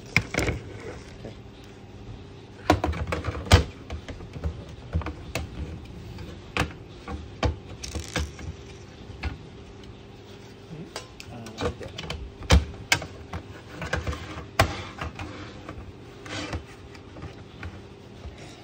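Sheet-metal cover of a CCTV DVR being handled and fitted over the recorder's chassis on a table: irregular clicks, taps and metallic knocks, with two louder knocks about three and a half seconds and twelve and a half seconds in. A faint steady hum runs underneath.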